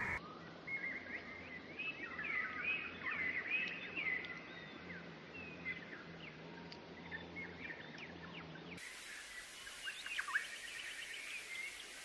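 Many small songbirds chirping and warbling, short rising and falling notes over a faint outdoor background. About nine seconds in the recording switches abruptly to another birdsong track with rapid trills.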